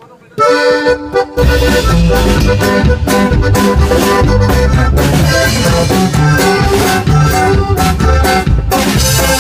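Live norteño band starting a song: a short button accordion phrase, then drum kit and electric bass come in about a second and a half in, with the accordion carrying the melody over a steady beat.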